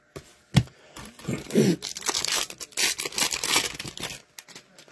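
Hockey card pack wrapper being torn open and crinkled: a sharp click near the start, then about three seconds of crackling rustle.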